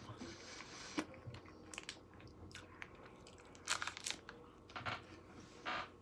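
Quiet chewing of a Nature Valley Sweet and Salty Nut granola bar, with a few irregular soft crunches.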